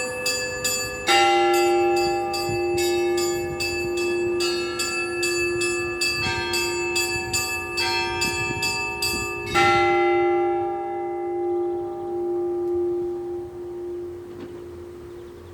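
Orthodox church bells being rung: quick repeated strokes on the small bells over a heavier bell that sounds about a second in and again just before ten seconds. The ringing then stops and the bells hum and fade away.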